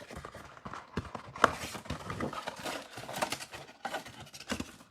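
Plastic wrapper of a trading-card pack crinkling and tearing as a box of baseball cards is opened, with irregular taps and clicks of cardboard and cards being handled.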